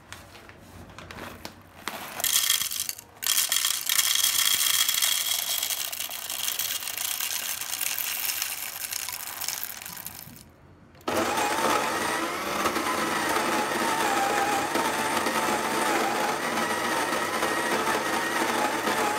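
Coffee beans poured rattling into the grinder's plastic hopper for several seconds, then, about eleven seconds in, the DeLonghi KG79 burr grinder switches on and runs steadily, its motor whine wavering slightly.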